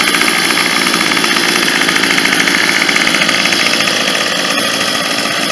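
Two two-stroke gas string trimmers, a Troy-Bilt and a Homelite, running together with a loud, steady, buzzy engine noise.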